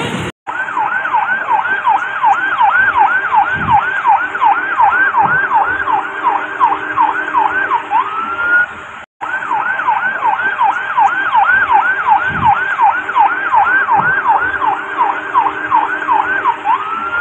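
Electronic emergency siren in a fast yelp, its pitch sweeping up and down about three times a second, then rising to a held tone. It cuts out briefly about nine seconds in and starts the same yelp again.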